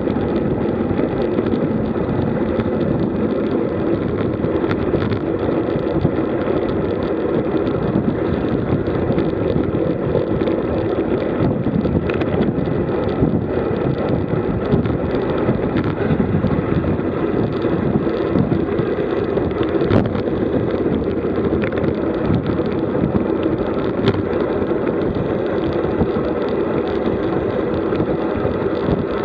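Steady rushing wind over the microphone of a camera mounted on a road bike moving at about 50 km/h, mixed with the rolling noise of the tyres on asphalt. It runs without a break, with a few faint ticks.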